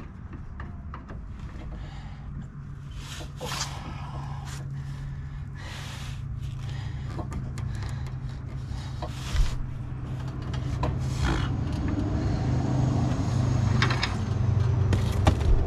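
Scattered light clicks, taps and rustles of hand work at a car's front lower control arm ball joint and ratchet strap, over a steady low hum that grows gradually louder.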